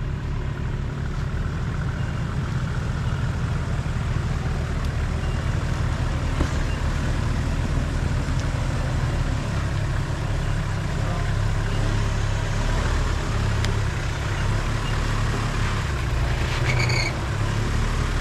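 Diesel four-wheel-drive engine running steadily at low revs. A brief high squeak near the end.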